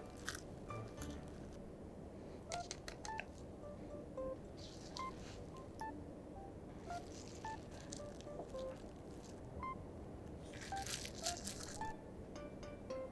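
Quiet handling sounds of crafting with a whipped-cream clay kit: brief crinkly squeezes and rustles with a few light clicks, over sparse short plinking notes.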